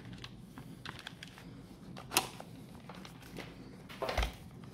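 Faint scattered clicks and light knocks from handling a Hitachi 115 mm angle grinder while its rear housing is refitted, with one sharper click about two seconds in and a dull thump near the end.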